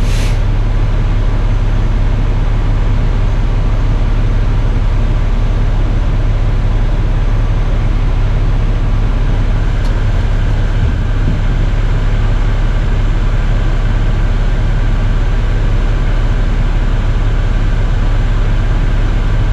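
Loud, steady low-pitched drone of running machinery, with no let-up or change in pitch.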